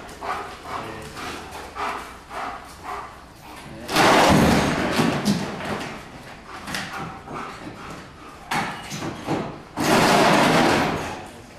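A German shepherd barks in a quick run of short barks for the first few seconds. Then come two loud clattering bursts, each about a second and a half long: one about four seconds in, one near the end.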